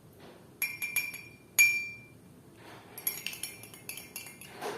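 A spoon clinking against a drinking glass as spoonfuls of honey are added: a few sharp clinks in the first second or two, the loudest one ringing on, then a quicker run of lighter clinks and taps.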